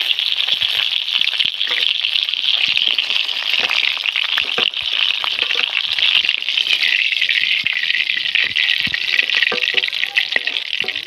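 Katla fish pieces sizzling steadily in hot mustard oil in a kadai, a dense frying hiss with fine crackling.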